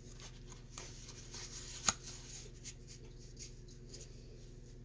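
Fingers handling and flexing a stiff cardstock jewellery package, a faint rustle and scrape of card with one sharp click about two seconds in.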